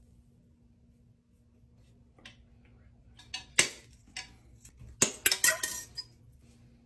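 Metal clicks and clinks as a wire coat hanger is worked with needle-nose pliers: one sharp clink about three and a half seconds in, then a quick run of clinks around five seconds.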